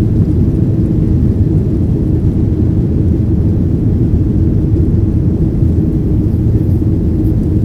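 Jet airliner cabin noise in flight: a steady low roar of engines and rushing air, unchanging throughout.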